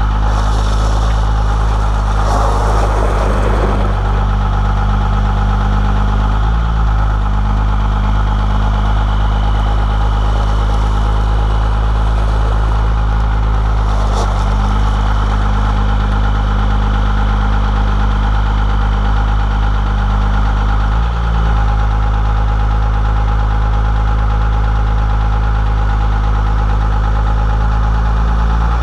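First-gen Cummins 12-valve 5.9 L inline-six turbo diesel running steadily at low revs, with a faint, steady high turbo whistle. The revs dip briefly twice.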